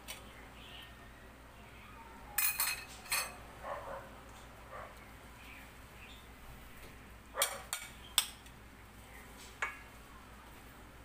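Fork, ceramic plate and stainless steel pan clinking together as cooked fish is served out: a few sharp clinks about two and a half to three seconds in, another group near seven and a half to eight seconds, and a single clink near the end.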